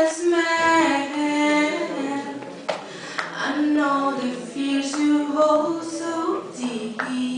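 A woman singing a cappella into a microphone, unaccompanied, holding long notes that step up and down in pitch.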